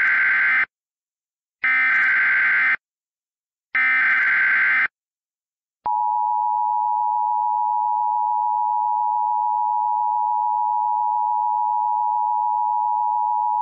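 Emergency Alert System SAME header: three one-second bursts of screeching digital data with short pauses between them, encoding a Civil Danger Warning. About six seconds in comes the EAS attention signal, a steady pair of tones sounding together that holds for about eight seconds and then stops abruptly.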